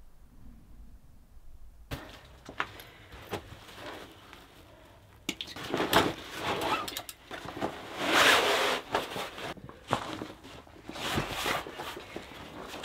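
Camp cot being unpacked and set up by hand: rustling of its fabric and bag, with scrapes and sharp clicks from the frame. It starts about two seconds in after a quiet moment, and the rustling is loudest just past the middle.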